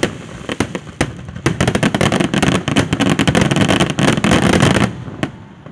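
Aerial fireworks shells bursting: a rapid run of loud bangs with dense crackling that dies away near the end.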